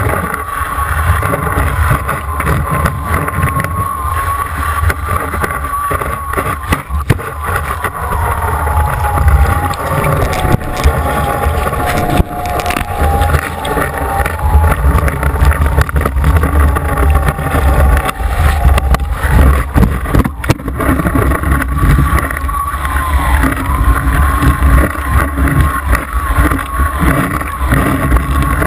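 Slalom water ski cutting through the water at speed, with spray hissing and splashing and heavy wind and water buffeting on the microphone at the ski tip. Under it runs the tow boat's engine as a steady whine that sinks lower in pitch for about ten seconds in the middle, then climbs back.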